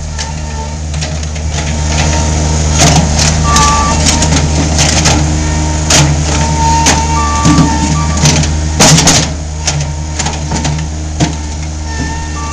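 Mini skid steer engine running steadily, with frequent sharp clanks and knocks between about two and nine seconds in, as it tears up debris, and a short high whine that comes and goes.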